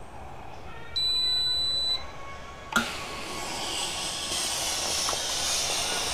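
Philips PerfectCare Elite steam generator iron: a single high beep lasting about a second, then a sharp click and steam hissing out of the soleplate. The steam is the sign that the newly fitted water pump is delivering water.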